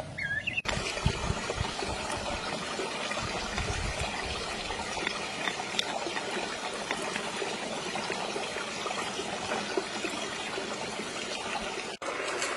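Steady rushing, hissing noise with a few low bumps in the first four seconds.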